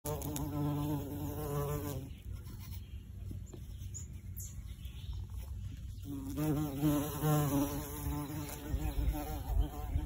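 Bumblebee buzzing in flight: a low, wavering hum that swells close twice, in the first two seconds and again from about six to eight seconds in, and fades between.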